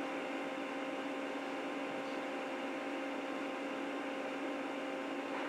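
Faint steady electrical hum with an even hiss: room tone.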